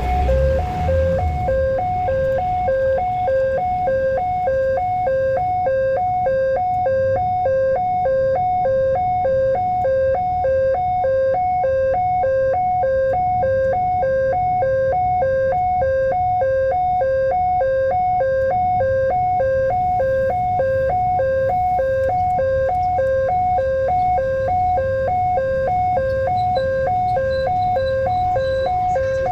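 Railway level-crossing warning alarm sounding a steady two-tone chime that alternates high and low about twice a second, warning that a train is approaching. A low traffic rumble runs underneath, heavier in the first second or so.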